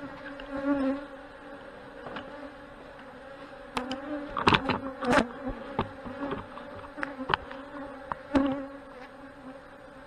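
Honey bees buzzing around an open hive: a steady hum, with single bees' buzz bending in pitch as they fly close past. Several sharp knocks come in the middle and again later, from the wooden hive boxes being handled.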